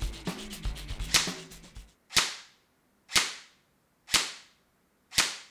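Outro music with a beat for about two seconds, then four sharp cracking hits, one a second, each dying away quickly.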